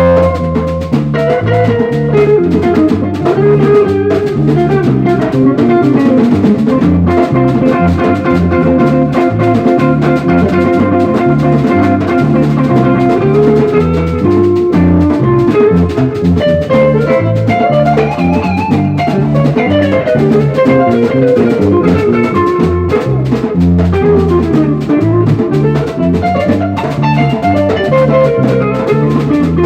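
A band playing an instrumental passage with no singing: guitar melody lines over a steady groove of drum kit and percussion.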